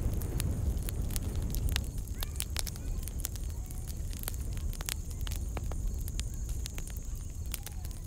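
Small open fire of dry straw and twigs crackling, with irregular sharp snaps and pops over a low rumble.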